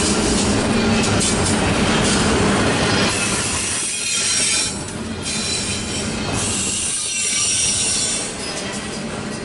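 Double-stack intermodal well cars rolling past close by, their steel wheels rumbling and clicking over the rail with a thin high squeal at times. The loudness eases slightly about halfway through and again near the end.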